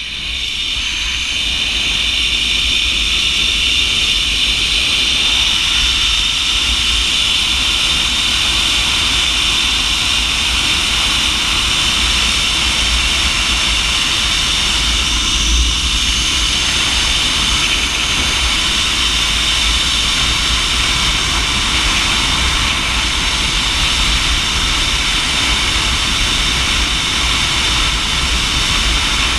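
Zipline trolley pulleys running fast along the steel cable, making a loud, steady high whine that builds over the first couple of seconds and then holds. Under it is a low wind rumble on the microphone.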